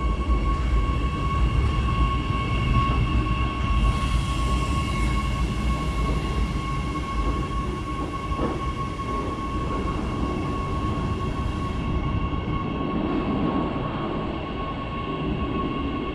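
Panoramique des Dômes electric rack-railway train standing at the platform, its onboard electrical equipment giving a steady high whine over a low rumble.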